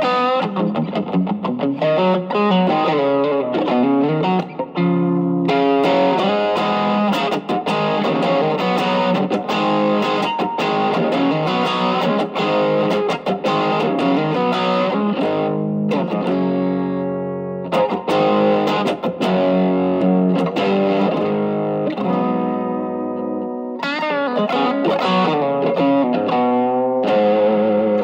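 Electric guitar (a Stratocaster) played through an Ibanez TS808 Tube Screamer overdrive at a low gain setting, fitted with a modified 1980 Malaysian RC4558P op-amp chip. The guitar's volume knob is rolled back, so the overdrive cleans up to a light crunch. The playing is a mix of chords and single-note lines, with a few short pauses.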